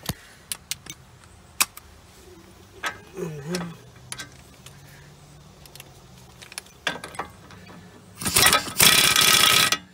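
A few light metallic clicks and knocks of tools on the front suspension. Near the end a power wrench runs loudly for about a second and a half, running a nut down that was first started by hand, before it is torqued.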